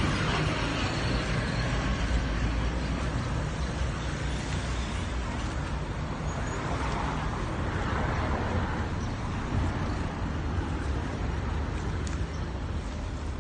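Road traffic noise, steady, with a vehicle passing by about halfway through.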